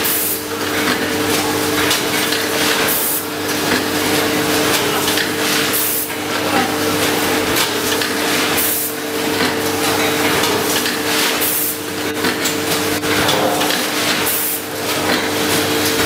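VFS7300 vertical form-fill-seal packing machine running, a steady mechanical hum with a sharp hiss and clack about every three seconds, once per bag cycle as each filled bag is sealed, cut and dropped.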